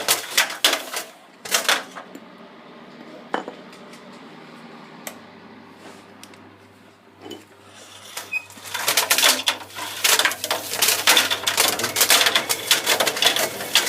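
Assorted hard objects clattering and knocking around inside a running tumble dryer drum: dense rattling runs near the start and over the last five seconds, with a quieter stretch of scattered knocks over the dryer's steady hum in between.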